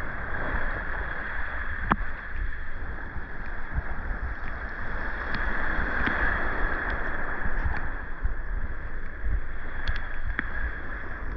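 Sea water washing and splashing at the shore in a steady, swelling wash, with wind rumbling on the microphone and a few faint clicks.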